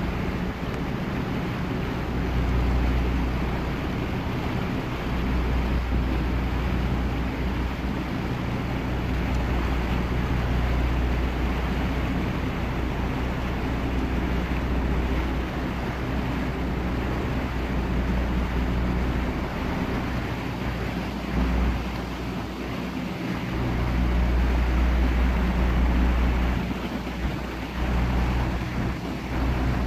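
Boat engine running steadily under way, heard from on board, with water and wind noise; a low rumble swells and fades a few times.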